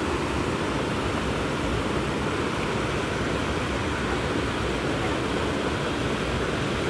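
Steady rushing noise with a low rumble, from wind and flowing river water.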